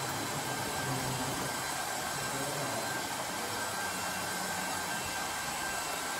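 Steady, even machine hiss with a low hum and a faint constant high whine, the sound of fans or moving air.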